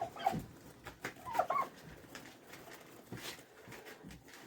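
Turkeys giving a few soft, short calls, one about a second and a half in rising in pitch.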